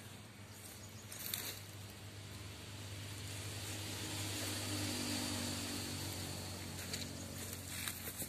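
Faint outdoor ambience in which a low engine hum swells and fades over a few seconds, like a distant vehicle passing, with a few brief faint rustles.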